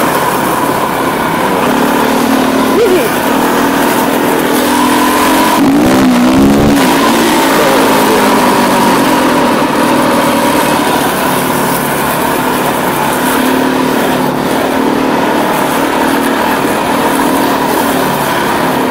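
Husqvarna TE510 enduro motorcycle's single-cylinder four-stroke engine running at a steady speed, picked up through an iPhone headset microphone. About six seconds in, the engine speed rises and falls quickly.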